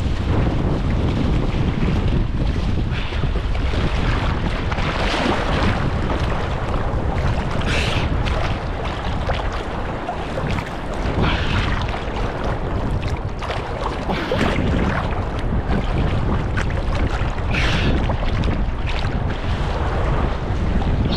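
Wind buffeting the microphone over choppy shallow seawater sloshing and small waves washing over reef rocks, with a few short splashes.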